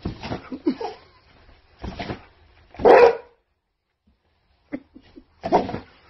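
Pit bull giving a series of short barks, the loudest about three seconds in.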